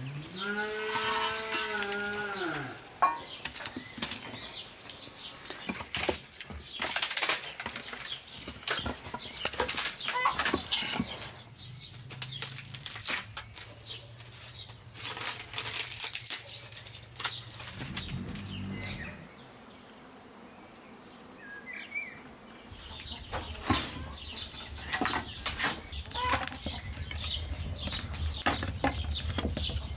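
A small shovel scraping ash inside a clay tandoor, and sticks of firewood knocking and clattering as they are stacked in the pit, in an irregular run of scrapes and knocks. Near the start there is one long farm-animal call that rises and falls.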